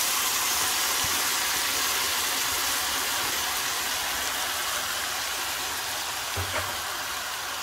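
Vigorous, steady sizzling and hissing as wet grated tomato and chopped sweet pepper hit hot oil in a frying pan of fried eggplant, onion and carrot, boiling off in steam. The sizzle slowly dies down.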